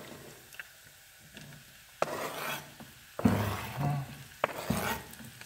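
Knife scraping diced mushrooms off a cutting board into a hot oiled frying pan, where they sizzle as they land. From about two seconds in come a few short scrapes and bursts of sizzling.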